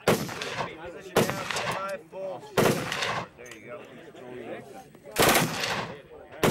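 Short bursts of full-automatic rifle fire from a bipod-mounted rifle: four bursts in about five seconds, each well under a second long.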